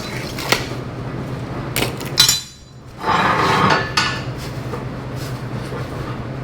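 Metal tools and steel parts handled on a metal work table: light knocks, then a sharp metallic clank about two seconds in that rings briefly, followed by a short scraping shuffle. A steady low shop hum runs underneath.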